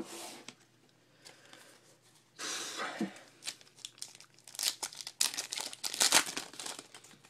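Baseball card pack wrapper being torn open and crinkled by hand: a couple of short rustles, then a run of crackling from about four and a half seconds in.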